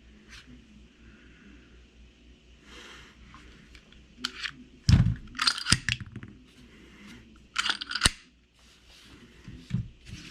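Clicks and knocks of loaded pistol magazines and .45 cartridges being handled and set down, in scattered clusters with quiet gaps between.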